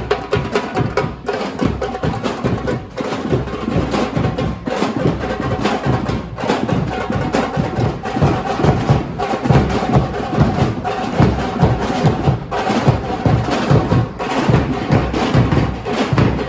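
Music with a steady, fast percussion beat of drums and knocking woodblock-like strokes over sustained pitched instruments.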